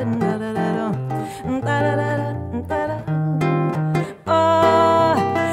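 Solo guitar playing an instrumental samba passage between vocal verses: plucked chords over moving bass notes, with a louder held chord about four seconds in.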